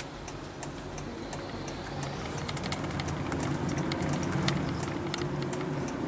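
Inside a Honda Freed+ Hybrid, a steady run of evenly spaced ticks, typical of the turn-signal indicator, over the car's low driving hum. The hum grows louder from about two seconds in as the car speeds up.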